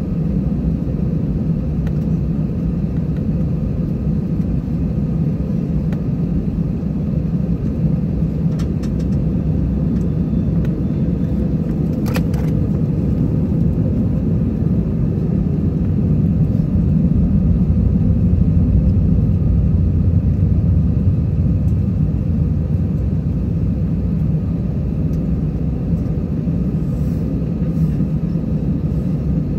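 Airbus A320's jet engines at idle, heard inside the cabin as a steady low rumble while the plane taxis and holds before takeoff. It swells a little about two-thirds of the way through, and there is one short click near the middle.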